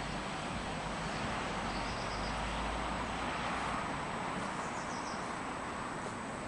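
Steady outdoor background noise with a low rumble through the first half and a few faint bird chirps.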